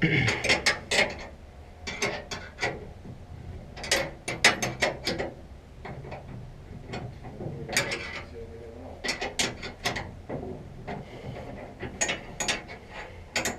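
Hand socket ratchet clicking in short runs of rapid strokes, about six runs a couple of seconds apart, as bolts are turned.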